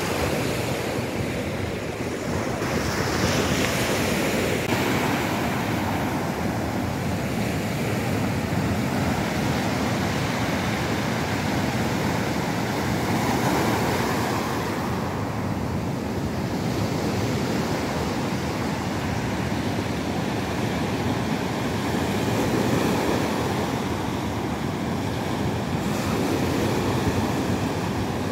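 Ocean surf breaking onto a sandy, rocky beach: a continuous rush of waves that swells and eases slowly as each set comes in.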